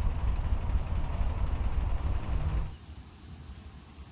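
Low, fluttering rumble of a narrowboat under way, which drops suddenly about two and a half seconds in to a faint, even hiss.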